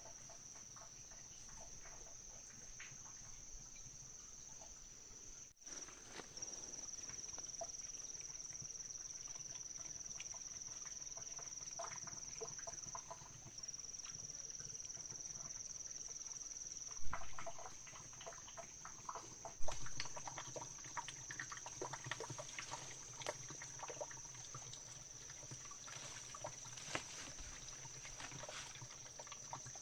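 Outdoor ambience: a steady high-pitched drone with scattered clicks and knocks, and two louder knocks a few seconds apart about two-thirds of the way through.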